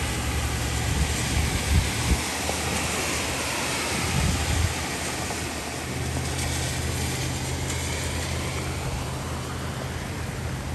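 Steady rushing noise of wind and flash-flood water flowing down a desert wash, with a low hum from an idling vehicle engine underneath.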